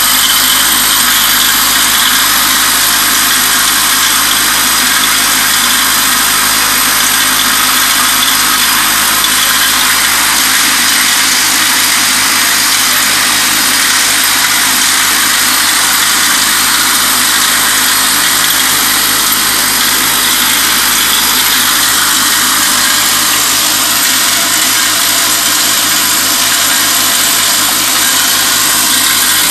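Vibratory bowl feeder running: a steady loud buzz with the rattle of small stamped metal parts shaking around the bowl and along the feed track.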